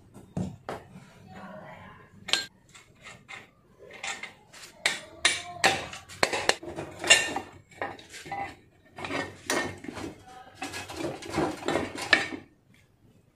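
Metal tools and motorcycle parts clinking and clanking against each other in quick, irregular knocks, some with a short ring.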